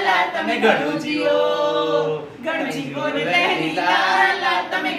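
A small group of men and women singing together without instruments, in long held notes with a short break about halfway through.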